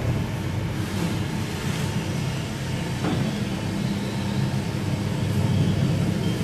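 Electric sliding gate opener driving a heavy steel gate open along its track: a steady low mechanical rumble and hum, with a single click about three seconds in.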